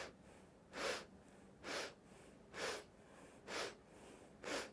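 Faint, short, sharp sniffs of air through the nose, evenly spaced at about one a second: the quick nasal inhalations of a breathing exercise.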